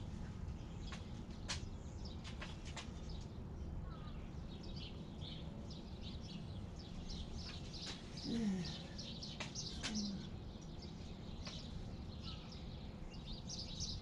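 Small birds chirping faintly in quick, high calls scattered throughout, over a steady low background rumble, with a few faint clicks.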